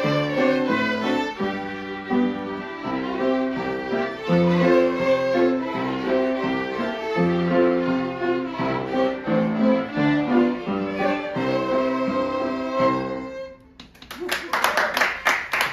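Several violins playing a tune together with piano accompaniment. The music ends on a held chord near the end, and applause breaks out right after.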